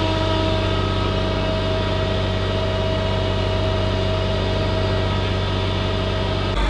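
Heavy diesel engine idling steadily with a constant low hum; the engine sound changes abruptly near the end.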